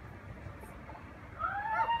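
Chihuahua beginning to howl about one and a half seconds in: a thin, wavering note that rises and then holds. Before it there is only faint low background noise.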